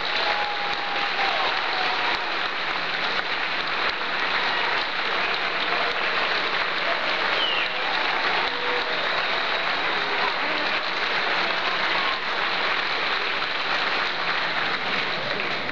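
Audience applauding steadily for a school band that has just finished its piece.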